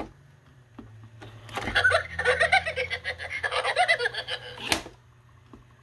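Animated Scooby-Doo pop-up gift-box toy: a click as it opens, then a recorded cartoon voice laughing and talking through its small speaker, with another click near the end.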